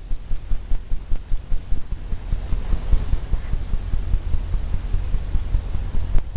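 Brush strokes against a stretched canvas carrying through as dull low thumps, about four a second, with a faint scrubbing of bristles over wet oil paint.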